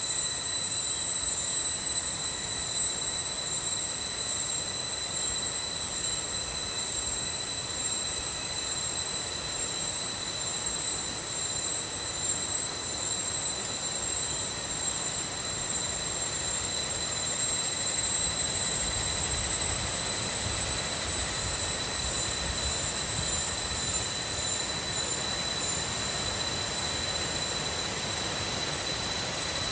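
Insects droning in tropical forest: a steady high-pitched whine with a wavering shimmer above it, without pause.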